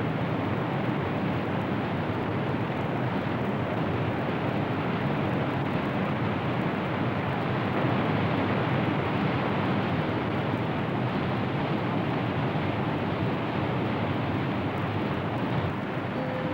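Steady rushing of whitewater in a river rapid, an even noise that holds without change.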